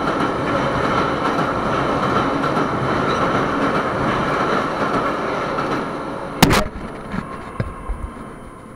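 Moscow Metro train running through a tunnel: a loud, steady rumble and roar with a faint, steady high hum. About six and a half seconds in there is one sharp click, after which the sound is much quieter, with a few soft knocks.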